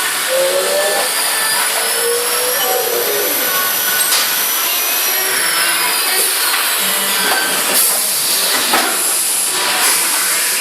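CNC router running and cutting, a loud steady rushing noise with a high spindle whine that rises and then falls over the first several seconds; a few light knocks near the end.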